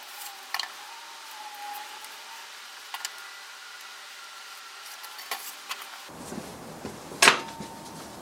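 Wooden workpieces and hand tools handled on a workbench: scattered light clicks and knocks, then one louder knock with a short ring about seven seconds in.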